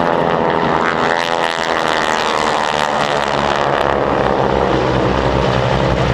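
Several vintage single-engine propeller planes flying over in formation, their piston engines and propellers making a steady, loud drone.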